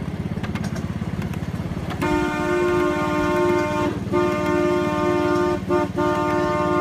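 Miniature ride-on locomotive's engine running with a fast, steady putter while its horn sounds a two-note chord in a long, long, short, long pattern. That is the standard grade-crossing signal, sounded on approach to a crossing.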